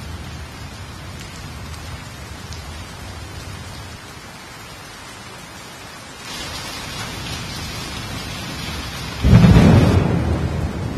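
Heavy rain falling steadily with low rumbling thunder. The rain grows heavier about six seconds in, and a loud thunderclap breaks about nine seconds in and then slowly rolls away.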